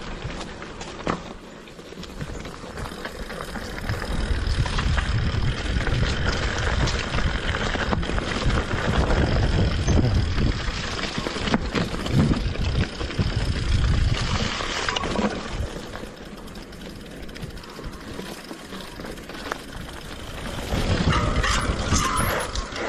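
Mountain bike riding down a rough dirt trail over dry leaves: tyres rolling and crunching, with the bike rattling over bumps. A low rumble swells through the middle and eases off after about fifteen seconds.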